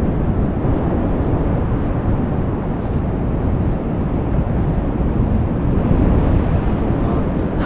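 Wind buffeting the camera microphone, a steady low rushing rumble, with the wash of surf on the beach mixed in.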